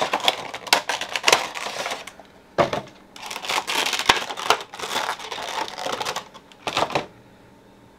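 Clear plastic packaging of a Funko Pop vinyl figure crinkling as it is pulled from its cardboard box and the figure is worked out of the insert: irregular bursts of crackling with sharp clicks, stopping about seven seconds in.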